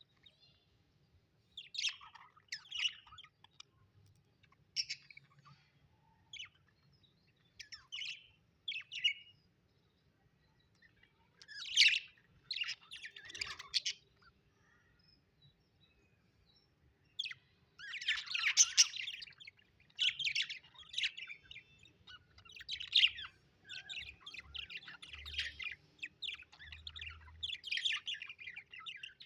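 Budgerigars chirping in short bouts with brief pauses between them, more continuous through the second half.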